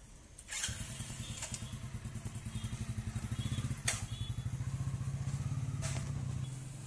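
A small engine running with a fast, even pulse, starting abruptly about half a second in and dying away near the end, with a few sharp metallic clicks over it.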